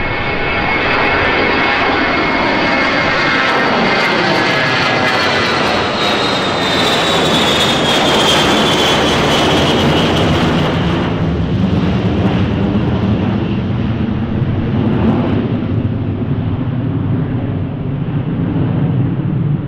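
Boeing/Grumman E-8 jet taking off on four TF33 turbofans, loud throughout. A high engine whine falls in pitch as the aircraft passes, about halfway through, and gives way to a deep rumble as it climbs away.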